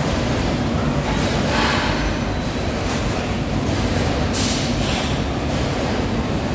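Steady running noise of a bacon slicing line's conveyors and machinery. Two short hisses sound over it, one about two seconds in and another about four and a half seconds in.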